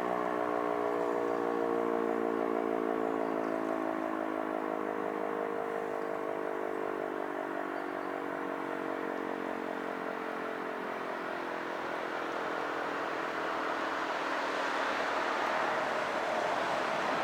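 E57 motor siren winding down at the end of its warning signal: its rotor coasting to a stop, the chord of tones slowly falling in pitch and fading over about ten seconds. A rushing noise swells near the end.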